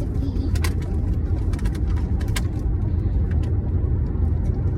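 Steady low road rumble inside a moving car, with a few light clicks.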